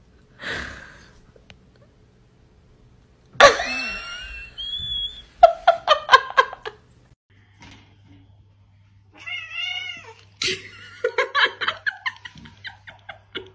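Cats meowing and yowling, with a sharp knock about three and a half seconds in.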